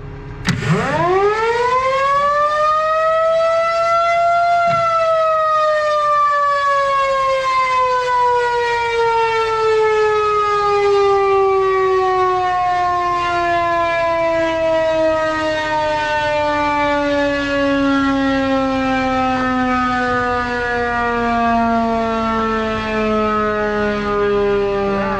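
Federal Signal 2nd-generation 2001-SRNB rotating electromechanical siren on its first test: it winds up quickly to full pitch over about four seconds, then slowly winds down, its single wailing tone falling steadily and still sounding at the end.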